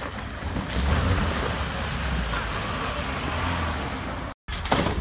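Mitsubishi Pajero Sport's engine pulling hard as the SUV pushes through icy water and climbs out of the ford, with water and broken ice churning around the wheels. The engine grows louder about a second in and holds steady, then breaks off for a moment near the end.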